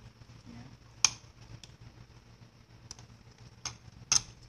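Sharp clicks and taps from handling a grass trimmer's plastic spool head while nylon line is threaded through its holes: four clicks, the loudest about a second in and near the end. A low steady hum runs underneath.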